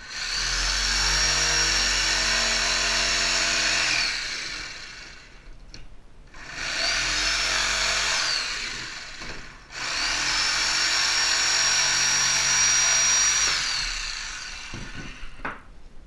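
Corded jigsaw cutting through a wooden dowel in three runs, the motor whining up to speed at the start of each and winding down at the end, the middle run the shortest. A few knocks follow near the end.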